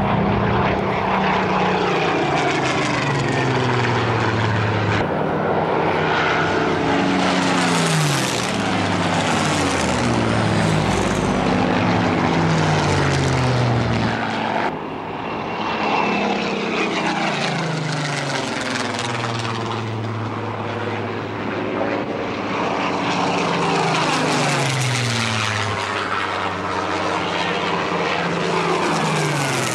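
Supermarine Spitfire's V12 piston engine running at power through low fly-bys, with its pitch dropping each time the aircraft passes. The sound dips briefly about halfway through, then builds again for further passes.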